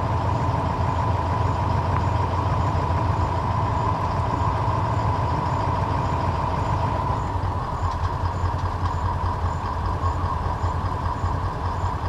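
A car's engine idling steadily, a constant low hum with a steady higher drone over it.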